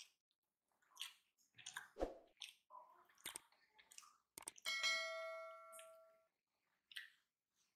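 Quiet clicks and soft wet squishes of fingers mixing cooked rice on a plate, with a soft thump about two seconds in. A little past halfway, a bright bell chime rings and fades over about a second and a half: the notification ding of a YouTube subscribe-button animation.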